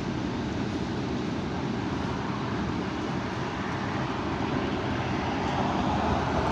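High wind blowing, a steady rumbling noise that swells a little near the end.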